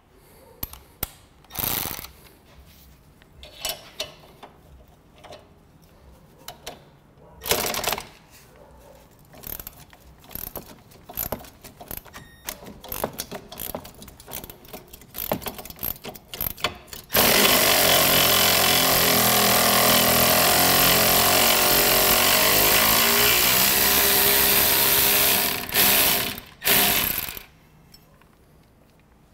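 Scattered clanks and clicks of tools and parts, then a handheld power tool runs loudly for about eight seconds and gives two short bursts near the end.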